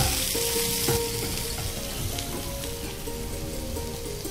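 Chopped onion, green chilli and cumin sizzling as they fry in a spoonful of oil in a pan, stirred with a wooden spatula.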